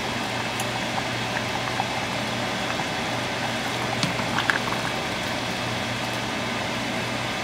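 Chicken gravy bubbling in a stainless steel pot while a wooden spatula stirs it, with a couple of light knocks about four seconds in.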